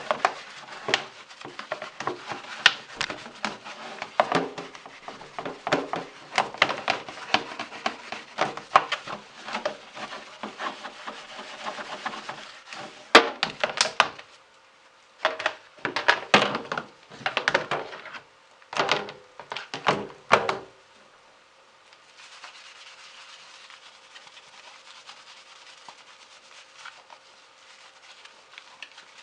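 Brisk scrubbing strokes on a ventilation fan's blades and frame, rapid and dense at first, then a few separate strokes that stop about two-thirds of the way in, leaving a faint steady hiss.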